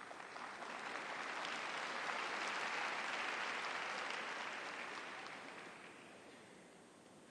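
Arena audience applauding, building over the first two seconds and dying away by about six seconds in.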